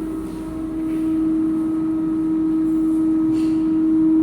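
Nutricook Air Fryer 2 running mid-cook, its fan motor giving a steady hum with one strong low drone, a little louder from about a second in.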